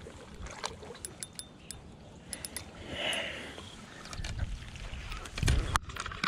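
A fish in a landing net being hauled out of the water onto the bank: water splashing and draining from the mesh, with scattered clicks and knocks from the net and its handle. A low rumble of handling noise builds from about four seconds in, with a couple of sharper knocks near the end.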